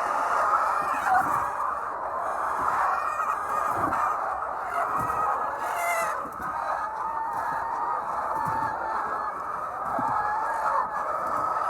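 A large flock of laying hens clucking and calling over one another in a steady, dense chatter, with one clearer call standing out about halfway through.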